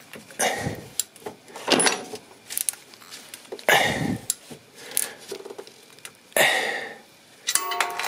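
Hand work on an alternator mounting bolt deep in a car's engine bay: a spanner on the bolt, with a few short scraping, rustling bursts a second or two apart and light metallic clinks between them.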